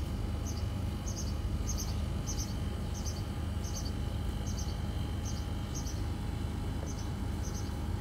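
Steady low background rumble with a faint hum. Over it, short high-pitched chirps repeat about twice a second, pausing briefly once in the second half.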